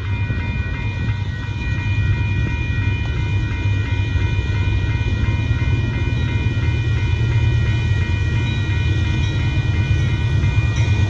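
Union Pacific intermodal freight train rolling past: a steady heavy rumble of cars on the rails, growing a little louder about two seconds in, with several steady high ringing tones held over it.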